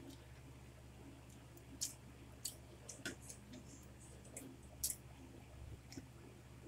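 Quiet eating sounds: a few scattered faint clicks and ticks of forks and spoons on plates and of chewing, over a steady low hum.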